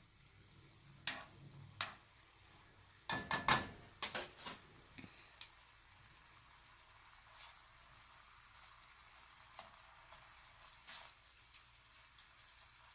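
Shrimp in a cream sauce simmering in a nonstick skillet with a faint steady sizzle. A spatula, then tongs, click and scrape against the pan a few times, mostly in a cluster about three to four seconds in.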